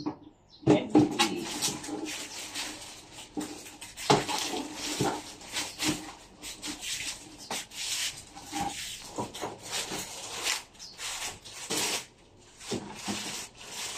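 Clear plastic wrapping rustling and crinkling as it is handled and pulled back, with a few knocks against the wooden packing crate.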